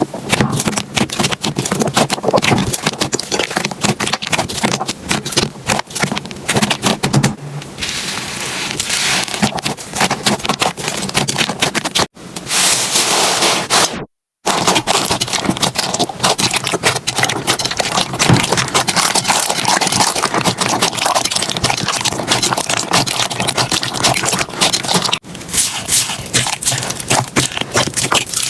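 Slime being pressed, poked and squished by hand, giving dense crackling and popping. The sound changes character at several cuts, with a brief dead silence about halfway through.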